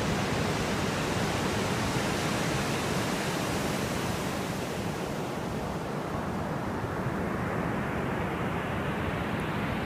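Steady rushing of surf washing onto a sandy beach; the hiss thins out about halfway through.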